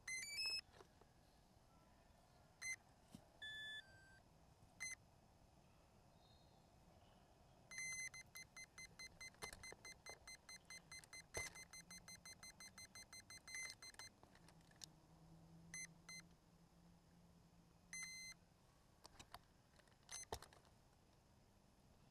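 Faint electronic beeps. A quick rising run of tones opens, a few single beeps follow, then a rapid string of about three beeps a second lasts some six seconds. A few light knocks come in between.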